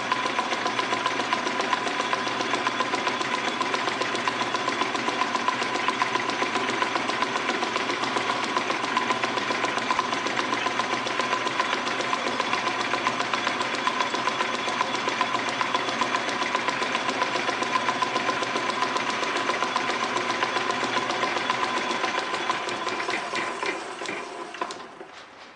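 Metal lathe running, turning a pulley blank in its chuck: a steady whine with a fast, even beat. Near the end the lathe is switched off and runs down.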